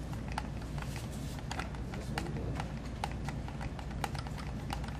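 Irregular light clicks and taps of plastic as a small plastic amplifier case is handled and pulled apart by hand, over a steady low room hum.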